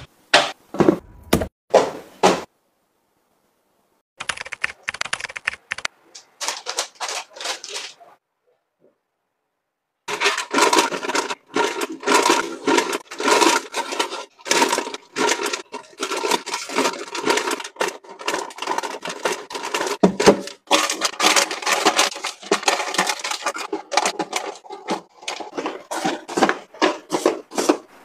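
Packaged snacks being handled and set onto shelves. There are quick taps as plastic cups are put down, then long runs of dense crinkling and clicking from plastic snack bags and boxes being packed into a metal pull-out basket. The sound breaks off twice into brief silences.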